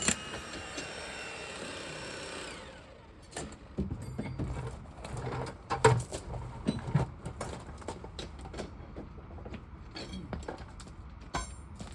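A jackhammer stops, and a steady whir runs on and fades away with a falling pitch over the first three seconds or so. After that come scattered knocks and clinks of hard material being moved about.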